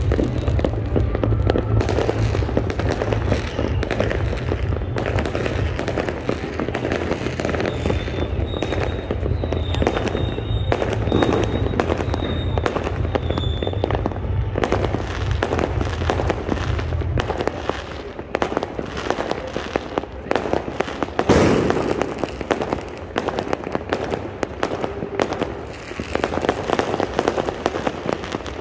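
Fireworks going off in dense, continuous bangs and crackles, the loudest burst about 21 seconds in. A faint high whistle runs from about 8 to 14 seconds in, and a low rumble underneath stops about 17 seconds in.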